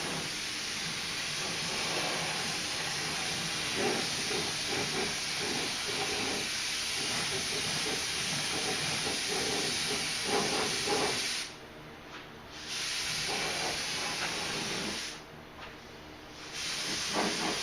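Compressed-air spray gun spraying clear coat, a steady hiss of air and atomised paint. It cuts out briefly twice near the end as the trigger is let go.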